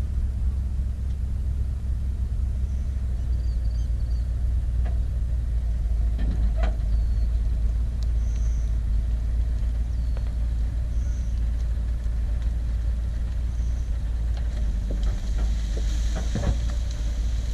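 Diesel engine of a Cat 304 mini excavator running steadily with a low rumble. A couple of faint knocks come partway through.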